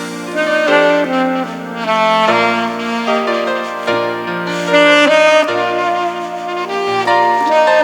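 Saxophone playing a gospel song melody over an accompaniment with a bass line that changes every second or two.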